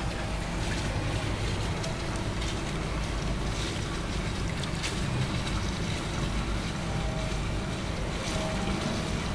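Steady flow of air-handling-unit condensate water running from a pipe outlet into a shallow tiled pool: a continuous even rush of running water with a low rumble underneath.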